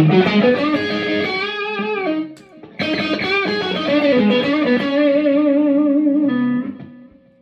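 Electric guitar played through a Friedman IR-X preamp on its channel 2, driving a Two-Rock Jet amp's power amp and speaker at low volume: a single-note lead phrase with vibrato, a short pause about two seconds in, then a long held note with vibrato that dies away near the end.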